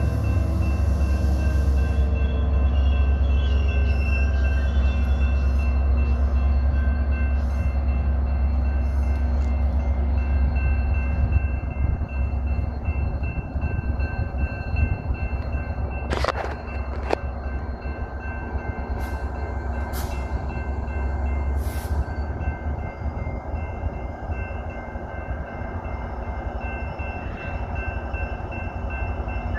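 Metra EMD F59PHI diesel locomotive with its 12-cylinder EMD 710 engine running: a heavy, deep rumble with a steady whine over it. The rumble drops off about twelve seconds in, and a few sharp metallic clanks follow in the second half.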